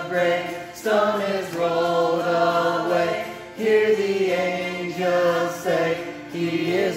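A solo voice singing a slow hymn in long held notes, with strummed autoharp chords underneath.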